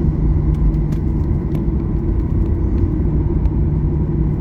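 Cabin noise inside a Boeing 737-800 taxiing on the ground: a steady low rumble with an even hum, and a few faint light clicks.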